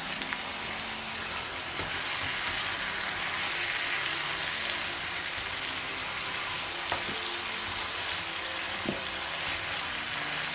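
Food frying in hot oil in a pot, a steady sizzle, with two light clicks of a utensil about seven and nine seconds in.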